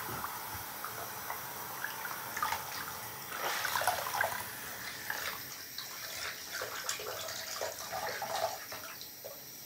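Water running from a hand-held sprayer and splashing in a bathroom sink as a puppy's coat is rinsed, busiest a few seconds in.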